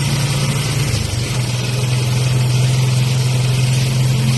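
A vehicle engine running with a steady low hum that drops slightly in pitch about a second in, over a constant hiss of heavy rain.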